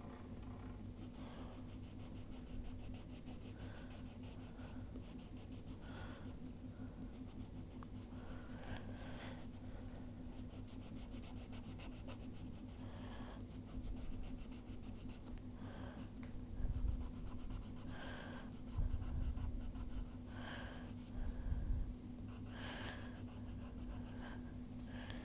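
Black colour pencil shading on paper: runs of quick back-and-forth scratching strokes as an area is filled in solid, over a steady low hum. A few dull bumps come in the second half.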